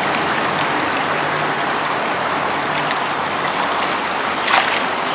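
Shallow river water running steadily around a wading man's legs, with a splash about four and a half seconds in as a cast net is dipped and shaken in the water.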